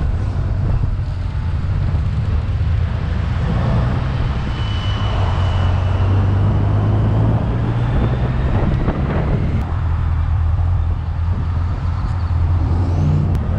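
1991 Kawasaki Voyager touring motorcycle's inline-four engine running steadily at low speed, heard from the rider's seat with road noise, as the bike rolls through traffic and into a parking lot.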